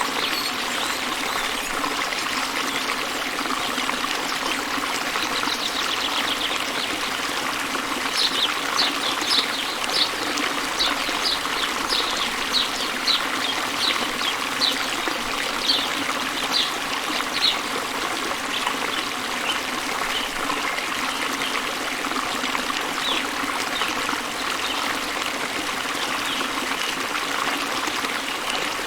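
Steady rush of a waterfall's flowing water, with a bird chirping a quick run of short high notes, about two a second, starting about a third of the way in and lasting some ten seconds.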